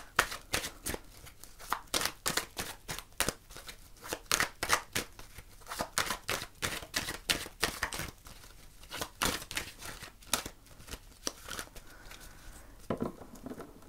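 A deck of oracle cards being shuffled by hand: a quick, irregular run of crisp card clicks and slaps that thins out near the end.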